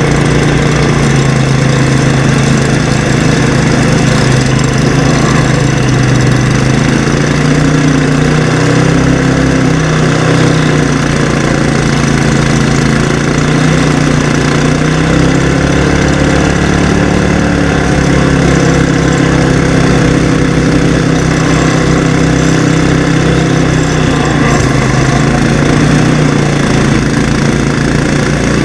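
The engines of a 16 hp Sears and a 13 hp Gilson garden tractor running hard, their pitch sagging and recovering several times as they pull against each other in a tug of war.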